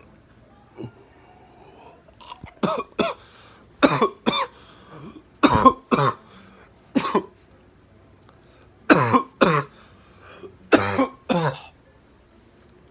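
A man coughing hard, about a dozen harsh coughs in pairs and threes, the coughing fit that follows inhaling a hit of vaporised wax concentrate.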